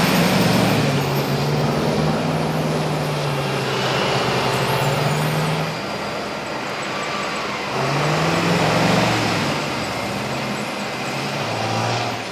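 Heavy dump truck engine running under load, its pitch rising as it revs up about eight seconds in, then easing back.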